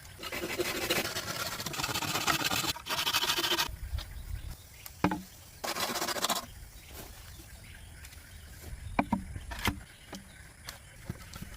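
Bamboo being cut and worked by hand: several seconds of steady rasping strokes, then a few sharp knocks and clicks of bamboo, one more short rasping burst, and scattered knocks later on.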